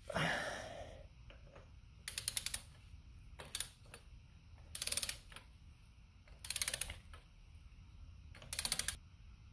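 Ratchet head of a click-type torque wrench ratcheting in five short bursts of rapid clicks, about a second and a half apart, on the back-swings while an oil filter is tightened toward 17 lb-ft. The wrench has not yet reached its setting.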